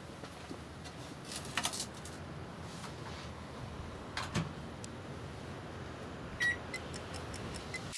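Microwave oven with a steady running hum, a few sharp clicks, and a short beep about six and a half seconds in, followed by a quick run of light ticks, about five a second.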